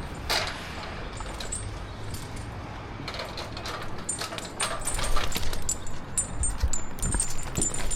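Metal climbing hardware, carabiners and rope devices, clinking and jingling on the climber's harness in irregular bursts, louder and busier in the second half.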